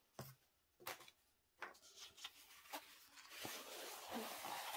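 Faint handling noises: a few light taps, then from about three and a half seconds in a soft, steady rustle as the rolled diamond painting canvas, covered in protective film, is handled and begins to be unrolled.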